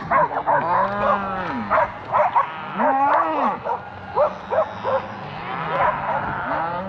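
A cattle herd bawling: several cows and calves mooing at once in overlapping calls that rise and fall in pitch.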